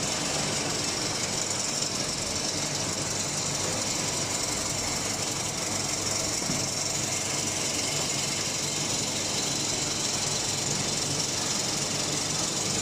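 Metal chips baler running: a steady mechanical noise with a low hum and a high hiss that holds even throughout.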